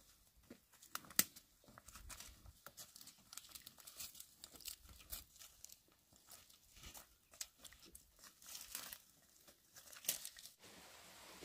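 Dry twigs and leaves crackling and snapping under a water buffalo's hooves as it walks over a littered dirt slope, irregular crunches with one sharp snap about a second in.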